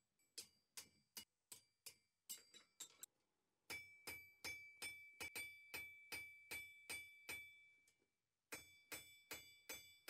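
Faint blows of a blacksmith's hand hammer on red-hot iron over an anvil, about two to three a second, each with a short metallic ring from the anvil. The blows pause for about a second near the end, then resume.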